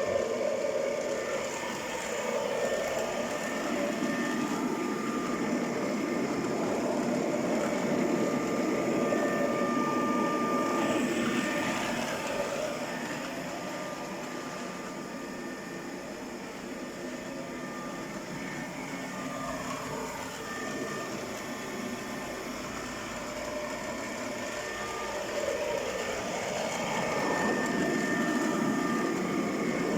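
iCLEBO O5 WiFi robot vacuum running, its suction fan and brushes making a steady whirring hum with a faint whine. It grows louder and quieter as the robot moves nearer and farther away, loudest in the first third and again near the end.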